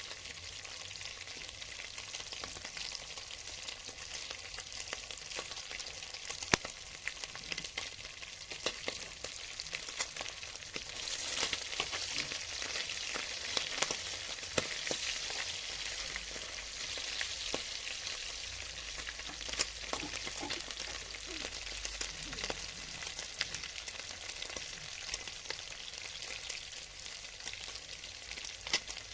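Food frying in a hot pan: a steady crackling sizzle with scattered small pops, a little louder for a few seconds in the middle.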